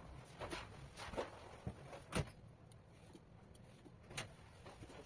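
Vegetable peeler scraping along a cucumber's skin in a few short strokes, the loudest a little past two seconds in.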